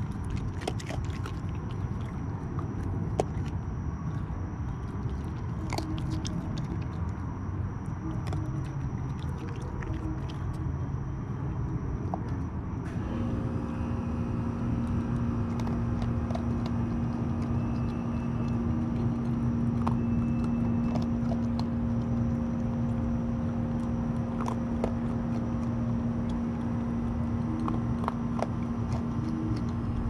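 Raccoon eating dry pet food kibble from a bowl close to the microphone: scattered crunches and clicks. A steady low hum comes in about halfway through and continues.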